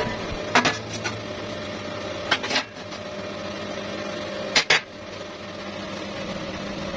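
A small motor humming steadily, with pairs of sharp knocks about every two seconds.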